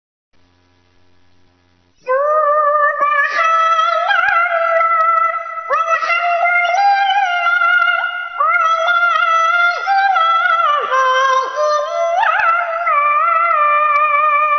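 A high, pitch-shifted singing voice chanting the shalawat 'Subhanallah wal hamdulillah' as one melody line with gliding, wavering notes. It comes in loudly about two seconds in, after a faint hum.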